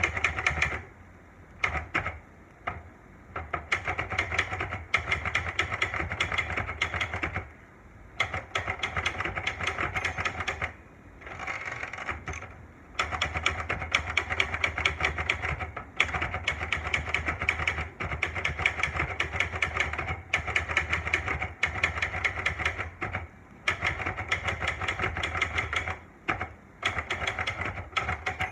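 Olivetti Lettera 92 manual portable typewriter being typed on: rapid runs of key strikes, each lasting a few seconds, broken by short pauses, with a low thud under each run as the typebars hit the platen.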